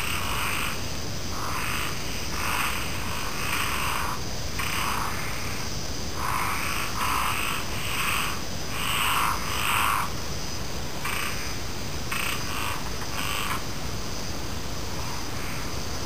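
Frogs calling in repeated croaking bursts, each about half a second to a second and a half long, with short gaps; the calling eases off near the end. Behind them runs a steady high trilling of night insects.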